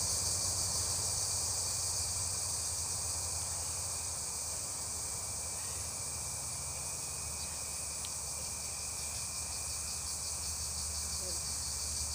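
Steady, high-pitched insect chorus that keeps up without a break, with a faint low hum under it.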